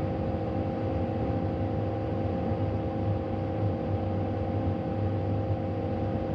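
Caterpillar 310 mini excavator's diesel engine running at a steady speed, an even hum with held tones.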